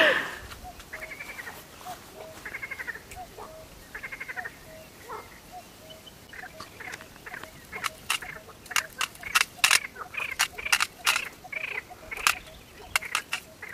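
Frogs croaking in short, repeated pulsed calls, with a run of sharp, irregular clicks in the second half.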